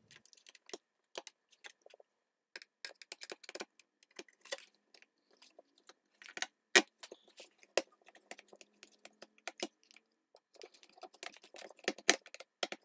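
Irregular small clicks and taps of wire ends being wrapped around the metal screw terminals of a switching power supply, with a screwdriver working the terminal screws near the end.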